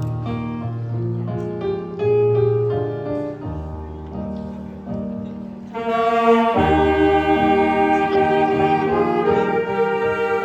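Piano plays a slow passage over held low notes. About six seconds in, a wind band with saxophones and brass comes in together, louder and fuller, and plays the melody.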